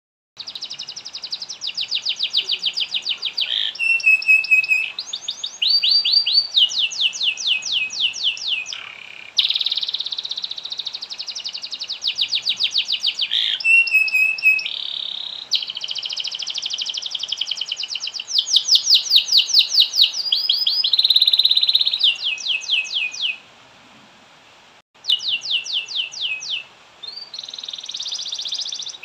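Domestic canary singing a long song of rapid rolling trills and repeated phrases, one phrase running straight into the next, with a short pause about three-quarters of the way through.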